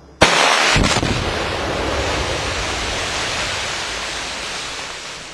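A buried ANFO explosive charge detonates with a sudden sharp blast about a quarter second in and a second crack just after. A long rushing noise follows and slowly fades.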